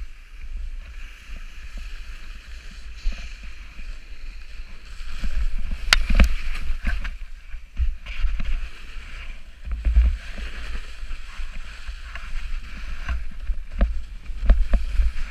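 Snowboard sliding and scraping over snow, with wind rumbling on the camera microphone and a few sharp knocks along the way.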